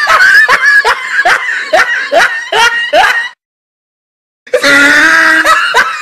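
Laughing sound effect: a laugh in rhythmic 'ha' pulses, about two or three a second, that stops about three seconds in. A second, different laugh starts about a second and a half later.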